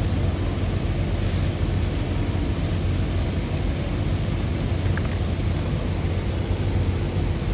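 Distant drag-race car engines running in a steady low rumble.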